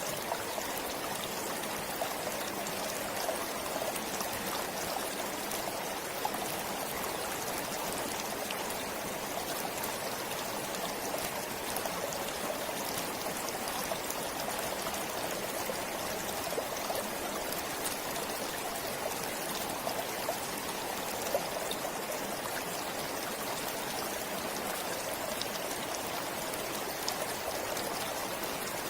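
Forest stream flowing steadily over rocks, a continuous rush of water with small splashes and trickles throughout.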